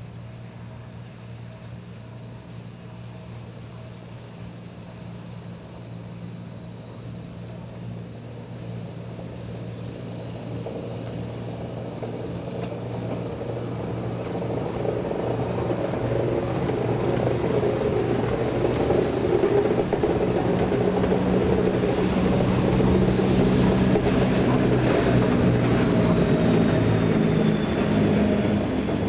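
Historic He 2/2 electric rack locomotive of the Schynige Platte-Bahn, built 1909–1914, pushing two coaches uphill, approaching and passing close by. A steady low drive hum and running noise grow louder as the train nears and stay loud through the last third, with a faint high whine falling slightly in pitch near the end.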